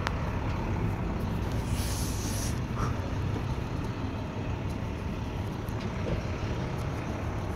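Steady low rumble of vehicle noise, with a brief high hiss about two seconds in.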